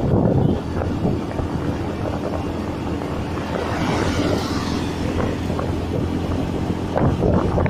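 Small motorcycle riding along at a steady speed: its engine hums under wind rushing over the microphone.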